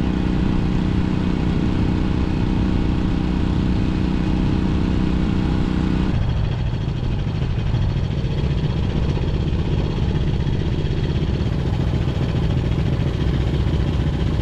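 The 305cc four-stroke twin engine of a 1964 Honda CA77 Dream running at a steady cruising pitch as the bike rides along, with wind rush on the microphone. About six seconds in, the sound changes abruptly to a rougher rumble where wind noise covers more of the engine.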